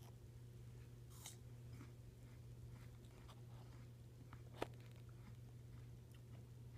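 Near silence: a low steady hum with a few faint clicks, the sharpest near the middle, as an apple slice is dipped and stirred in a small cup of caramel dip.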